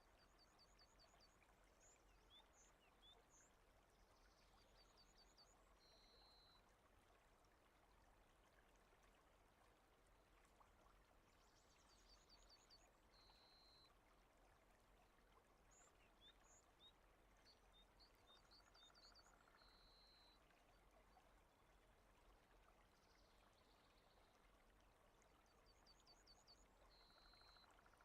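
Very faint rain ambience, a steady hiss barely above silence. Faint high chirps and a short high tone recur in the same pattern about every seven seconds.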